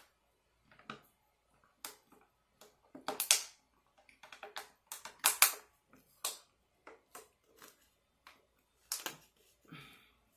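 Close-miked eating sounds of lasagna: an irregular run of sharp, wet clicks and crackles from chewing and mouth noises, busiest and loudest around the middle.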